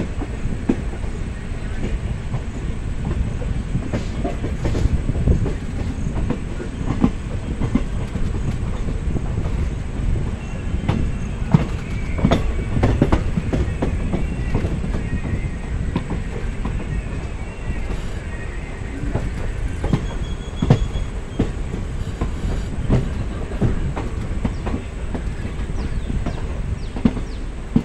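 Passenger train coach running along the track, heard from its open doorway: a steady low rumble with irregular clickety-clack as the wheels cross rail joints. A faint wheel squeal comes and goes in the middle.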